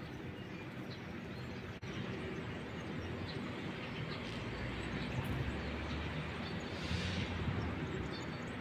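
Outdoor ambience: a steady low rumble with faint bird chirps scattered through it. The sound cuts out for an instant about two seconds in, and the rumble grows a little louder past the middle.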